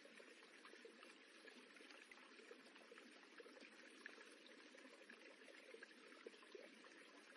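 Faint, steady sound of water rippling and running, a continuous fine babble of small splashes.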